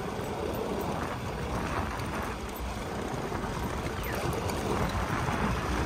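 Steady rush of wind and road noise from riding a motor scooter along a narrow paved road, with the scooter running underneath.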